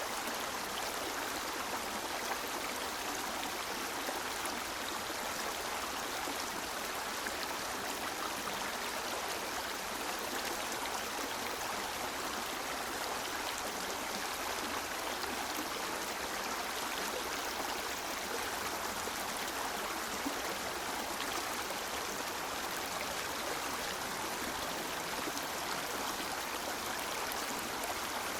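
River water flowing and rushing steadily, an even wash of water noise with no let-up or change.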